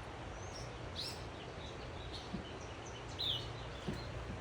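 Wild birds calling: a few sharp, high downslurred whistles, about a second in and again near three seconds, with scattered short chirps, over a faint steady low background.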